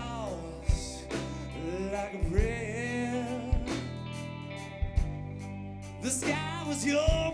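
Live rock band playing at a slow tempo: a singer holds long, wavering wordless notes over electric guitars, bass and drums, with a drum hit about once a second.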